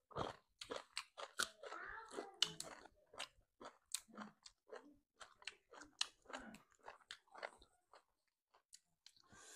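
Close-miked chewing and crunching of food: many short, irregular crunches and mouth clicks from people eating.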